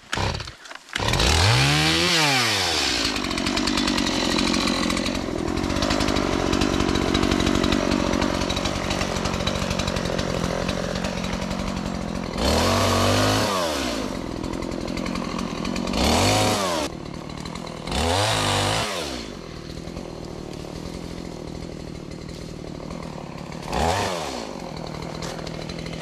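Two-stroke gas chainsaw catching about a second in and revving up, then held at high revs for about ten seconds while cutting up a dead alder. After that it is revved in short bursts several times, dropping back to idle between.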